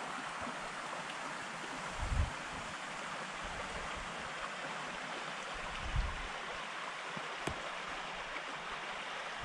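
A small trout stream flowing, a steady even rush of water over riffles. Two brief low rumbles of wind on the microphone come about two and six seconds in.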